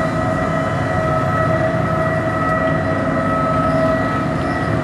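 Steady drone of a car ferry's engines and machinery under way: a low rumble with a steady whine held over it.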